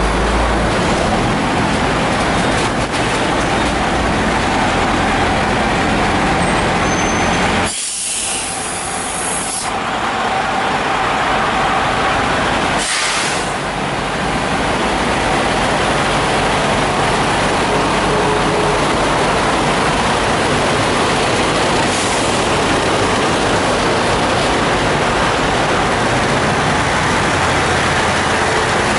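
Diesel semi-trucks idling steadily around a truck-stop fuel island. Two sharp hisses of compressed air from a truck's air brakes cut through: one lasting about two seconds, about eight seconds in, and a shorter one around thirteen seconds.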